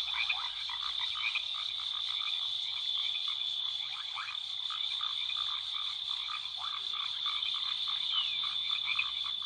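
Frog chorus ambience: many overlapping short croaks and chirps over a steady high trill.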